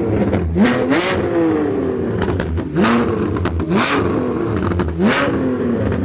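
A vehicle engine revved in about five quick throttle blips. Each rises sharply in pitch and then falls away slowly.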